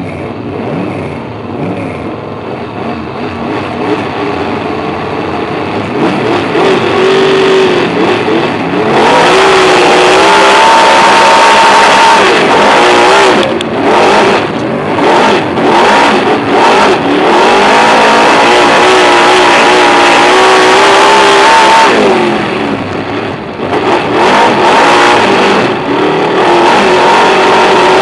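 Speedway superstock's V8 engine heard from inside the cockpit. It runs at low revs at first, then opens up hard about a third of the way in. The note then rises and falls as the throttle is lifted and reapplied: a few short lifts midway and a longer one later.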